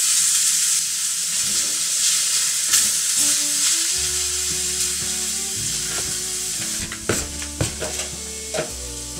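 Meat sizzling as it fries in a pan, a steady hiss that slowly eases off, with a few sharp pops near the end.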